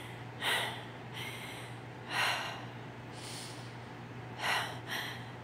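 A woman's heavy, pained breathing: about six short, sharp breaths and sighs through the nose and mouth, from back pain. A steady low hum runs underneath.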